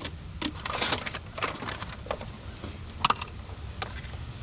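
Scattered metallic clicks and clinks of brake parts and hand tools being handled, with a short rustle about a second in and a sharp clink about three seconds in.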